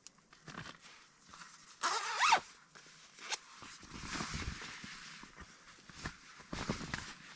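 A zipper pulled once in a quick stroke about two seconds in, then clothing rustling and soft bumps as a jacket is taken off.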